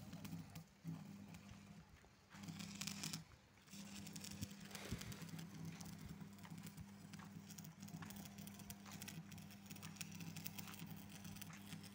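Electric arc welding: tack welds going onto the steel pipe frame of a tin shed, heard as a steady hum with a dense crackle from the arc. The arc stops and starts a couple of times in the first few seconds, then burns steadily.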